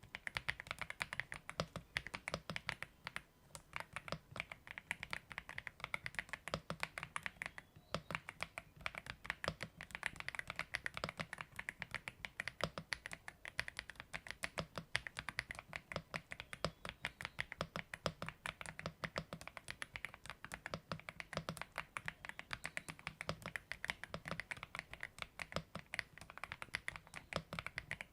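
AULA F75 mechanical keyboard being typed on steadily at a fast pace, a dense run of keystroke clacks with short pauses about three seconds and eight seconds in.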